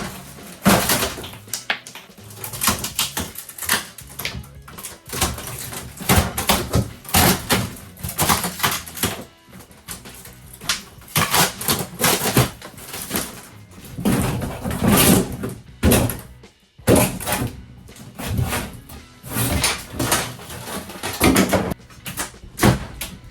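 Background music, with many sharp knocks and clatter of tools and panels being worked loose throughout.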